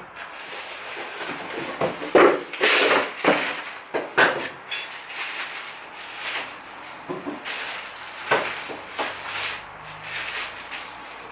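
Irregular handling sounds from unpacking a stainless steel roll cabinet: short rustling and scraping stretches of packaging, broken by sharp knocks and clatters.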